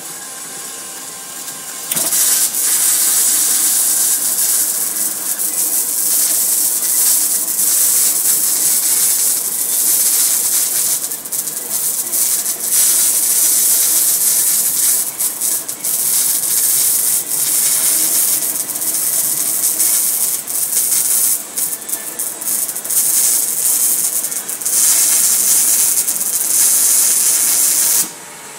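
MAG welding arc on 4 mm steel checker plate under Arcal 21 argon-CO2 shielding gas: a loud, steady crackling sizzle. It strikes about two seconds in, breaks off briefly a few times, and stops suddenly near the end.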